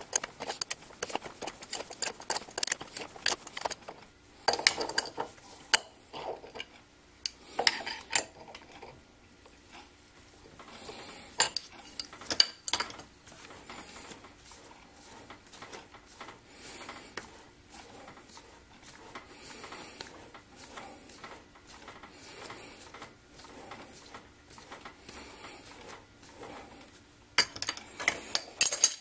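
Irregular light metallic clicks and clinks as a metal lathe's chuck is turned by hand, driving a tap held in the tailstock drill chuck into a small steel part to cut its thread. The lathe's motor is not running.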